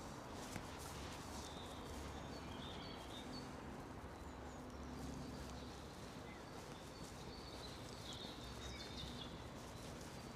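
Small birds chirping faintly in short scattered calls over a steady outdoor hiss, with footsteps on the path.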